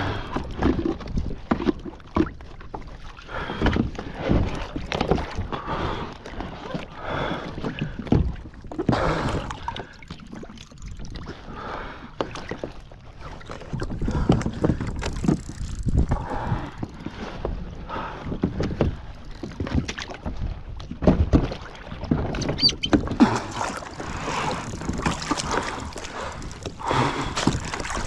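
Water splashing and sloshing in irregular surges as a person in the water struggles beside a capsized kayak, trying to pull himself back aboard while wearing an inflated life vest.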